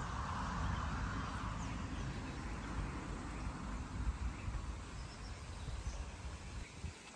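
Birds chirping faintly in the background over a low, steady rush of outdoor noise that eases off near the end.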